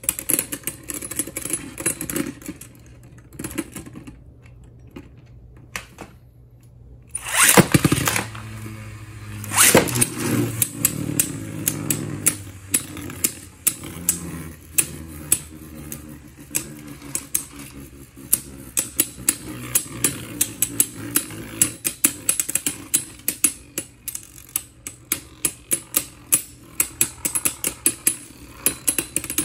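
Beyblade Burst spinning tops clashing in a plastic stadium: rapid sharp clicks of the tops striking each other and the stadium floor and wall, over a steady spinning whir. After a quieter stretch, two loud rushes of sound come about a quarter and a third of the way in as a new pair of tops is launched, and the clicking battle resumes.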